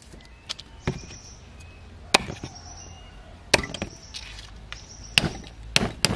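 Large knife chopping stalks of lemongrass on a wooden chopping block: about five sharp, separate chops spaced a second or more apart, two coming closer together near the end.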